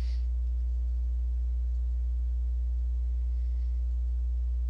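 Steady low electrical mains hum with a row of fainter, evenly spaced overtones above it, unchanging throughout.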